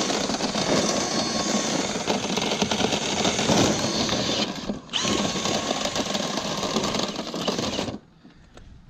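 Power drill spinning a rotary dryer vent cleaning brush through the duct. It stops briefly about five seconds in, winds back up, and cuts off about a second before the end.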